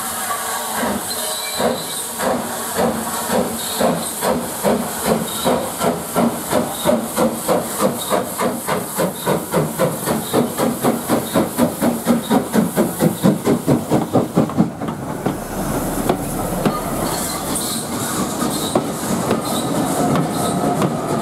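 Taff Vale Railway 0-6-2 tank engine No. 85 steaming towards and past, its exhaust chuffs growing louder and quicker to about three a second. About fifteen seconds in the chuffing stops and the coaches roll by with a steady rumble and clicks of wheels over rail joints.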